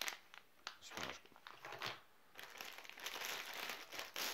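Plastic-and-foil MRE food pouches crinkling as they are handled and put down, in irregular crackles with a short pause about two seconds in, then steadier crinkling.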